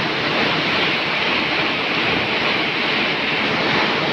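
Heavy rain pouring, a steady hiss.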